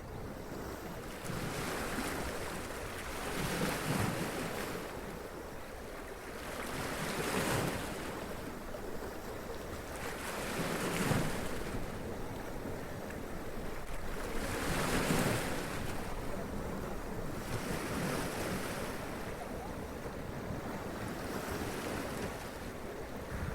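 Sea waves splashing and washing up over rocks, each wave swelling and falling back every three to four seconds.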